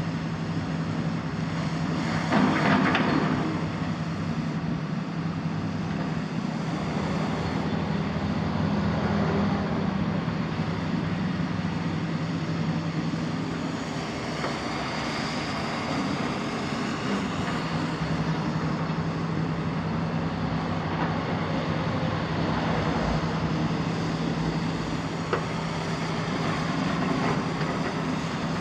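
Demolition excavator's Isuzu six-cylinder diesel and hydraulics running steadily with a constant hum while the machine slews and works its long demolition arm. There is a brief loud crash of rubble about two and a half seconds in.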